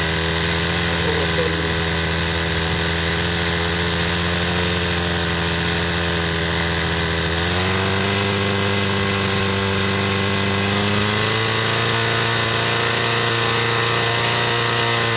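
A twin-cylinder two-stroke engine built from two 26 cc brush-cutter engines runs steadily, driving a wooden propeller. Its speed steps up about halfway through and again a few seconds later.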